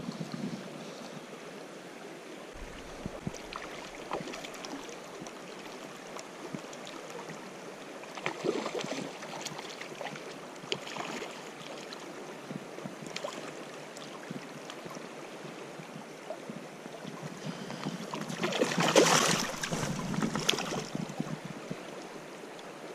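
Steady rush of a fast river current, with scattered small splashes. About eighteen seconds in comes a louder spell of splashing lasting a couple of seconds, as the hooked brown trout fights at the surface.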